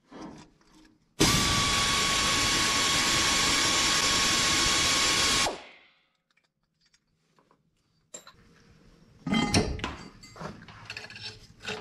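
Pneumatic air ratchet running steadily for about four seconds, a loud hiss and whir with a thin steady whine, then winding down: loosening the exhaust manifold nuts. Near the end, a few metallic clanks and knocks.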